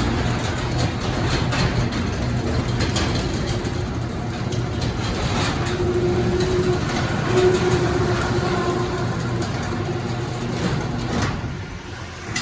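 Garage door opener motor running while the sectional door travels on its rollers and tracks, with light squeaks from the rollers, which have just been sprayed with PTFE lubricant. It drops off briefly near the end, then starts again.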